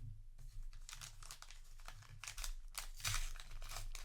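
Foil booster pack wrapper being handled, a run of irregular crinkles and rustles, loudest about three seconds in.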